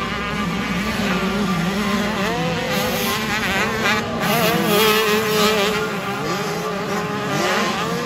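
Several 85cc two-stroke motocross bikes revving hard, their buzzing engine notes overlapping and repeatedly rising and falling in pitch as the riders accelerate and shift.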